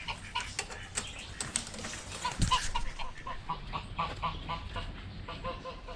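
Chickens clucking: a run of many short, repeated calls, with a few sharp clicks among them.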